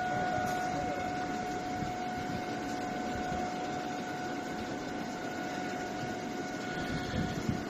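Factory machinery running steadily: a low mechanical hum and rumble with a constant high whine over it.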